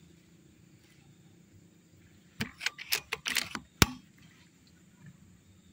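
Mechanical clicks and rattles from handling an air rifle: a quick run of clicks for about a second, ending in one sharp, louder click.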